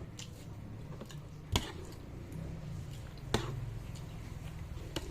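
A spoon clinking against a bowl of noodle soup while eating: two sharp clinks, about a second and a half in and again past three seconds, with a few fainter taps. A steady low hum runs underneath.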